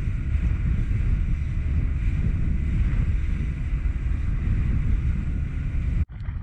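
Wind rumbling on the microphone and water rushing past a small boat running across choppy open sea; it cuts off abruptly about six seconds in.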